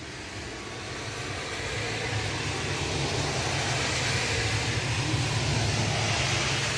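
Heavy rain hissing steadily, with a car driving along the wet street: its low rumble and tyre hiss grow louder over the first few seconds, then hold.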